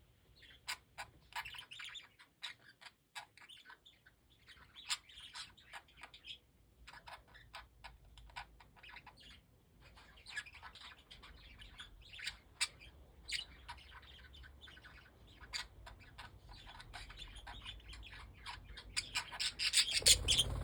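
Young budgerigars chirping and chattering in short scattered bursts, getting busier and louder near the end, where there is also a brief low thump.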